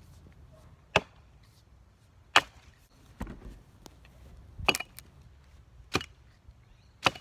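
Double-bit cruiser axe chopping into wood: six sharp, separate strikes, roughly one every second or so, the third one weaker.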